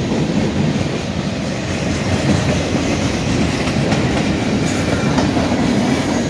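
Freight train boxcars rolling past: a steady rumble of steel wheels on the rails.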